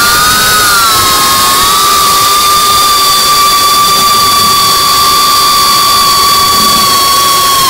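Brushless motors and propellers of a GEPRC CineLog35 FPV drone whining steadily at an even throttle, as picked up by the onboard camera. The pitch wavers slightly in the first second and falls sharply at the very end.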